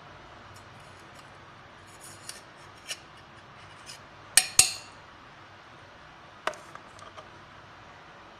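Steel spoon clinking against the rim and sides of a stainless steel grinder jar as sugar is tipped onto chopped carrots: a few scattered light taps, then two loud clinks in quick succession about halfway through, and a few lighter taps after.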